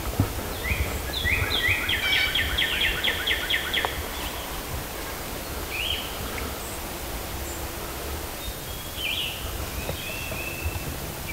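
Songbird singing: a quick run of about ten repeated high whistled notes about a second in, then a few short single notes later, over a low rumble.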